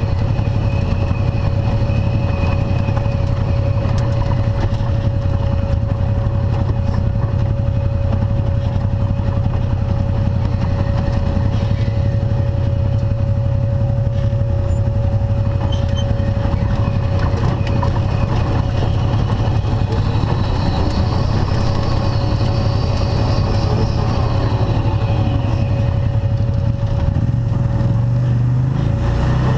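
Arctic Cat Wildcat side-by-side UTV engine running steadily, a low rumble with a thin steady whine over it that stops shortly before the end.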